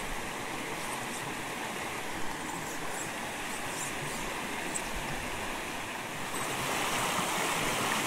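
Mountain stream water rushing steadily over rocks, growing a little louder about six seconds in.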